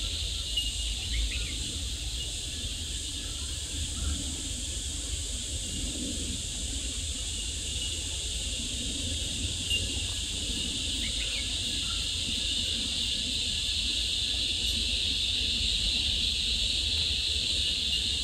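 Steady chorus of insects, a constant high-pitched buzz, over a low rumble, with a few faint short chirps near the start and about eleven seconds in.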